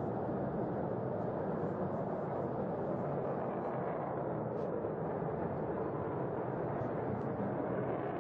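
Safir rocket's engine heard as a steady, even rumble while the rocket climbs away.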